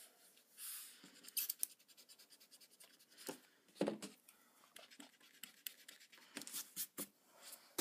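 Pencil and eraser strokes scratching and rubbing on drawing paper: a run of short, quick strokes, with a soft knock about halfway through.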